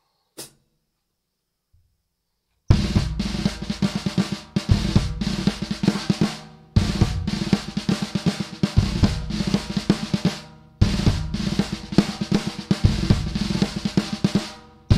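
Rebuilt Fibes drum kit being played. A single click comes about half a second in, then the drumming starts about three seconds in: fast rolls around the snare and toms, with a heavy low accent about every two seconds.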